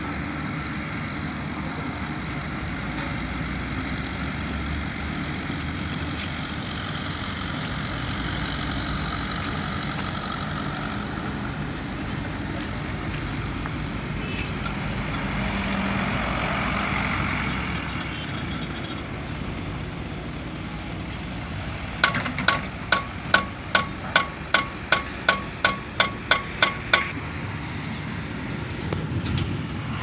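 Heavy diesel machinery running steadily, then about a dozen sharp, ringing metal-on-metal hammer blows at roughly two a second in the second half, the loudest sound here.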